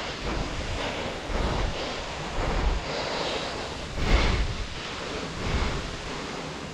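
Wind buffeting the microphone in gusts, with low rumbling swells (the strongest about four seconds in), over a steady rushing hiss.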